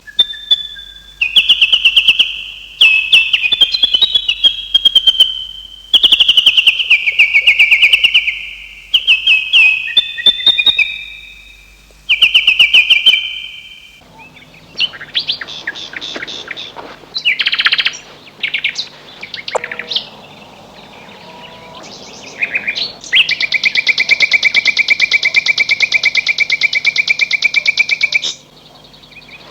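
Small songbirds chirping and trilling in quick, high-pitched runs of notes, phrase after phrase, with a long unbroken trill near the end.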